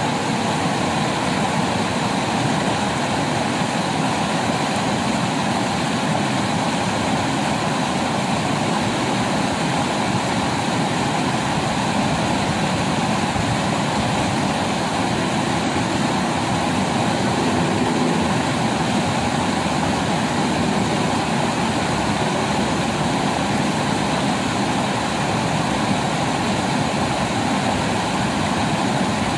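River rapids rushing over rocks, a steady, unbroken wash of water noise.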